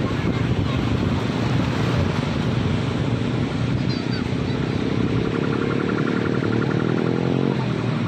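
Surf washing up a sandy beach, a steady rushing hiss. From about three seconds in, a motor engine hums over it, rising slowly in pitch, and stops shortly before the end.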